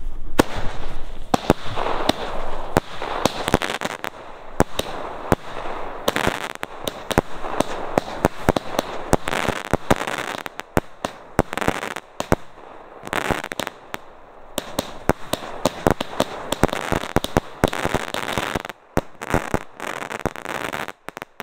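Diamond 'Phoenix' 36-shot firework battery (cake) firing: a fast run of sharp bangs and aerial bursts, one after another, thinning out with short gaps near the end.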